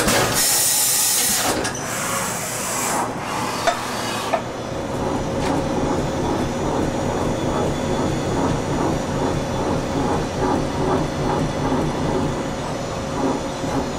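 Okuma & Howa Millac 438V CNC vertical machining center running a program without tools, its axes and spindle drives working. Two loud hissing bursts come in the first three seconds, then a steady whine sets in about four seconds in over continuous rhythmic machine running.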